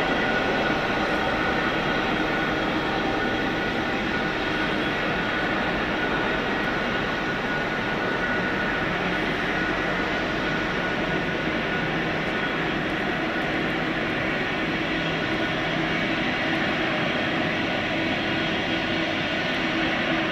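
Two Aurizon banker diesel locomotives pushing at the rear of a loaded coal train up a steep grade, their engines working hard in a steady drone with a high whine, fading slowly as they move away.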